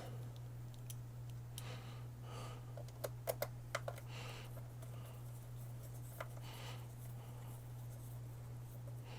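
A quick run of five or six small sharp clicks a little past three seconds in, with softer handling noises around it, from small screws, a screwdriver and plastic console parts being handled during reassembly. A steady low hum sits under it all.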